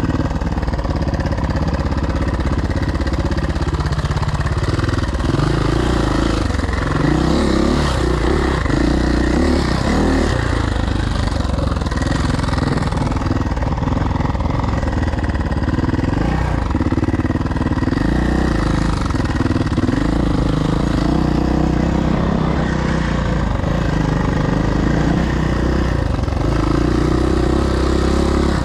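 Suzuki motocross bike engine running hard while being ridden, its note rising and falling as the throttle opens and closes.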